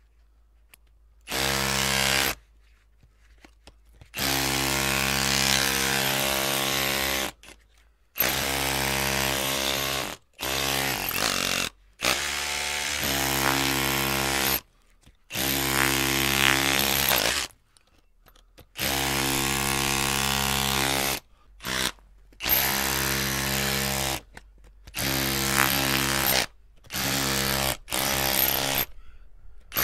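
Electric drill run in short bursts, its motor whining steadily for one to three seconds at a time and stopping about a dozen times, with brief silences between runs.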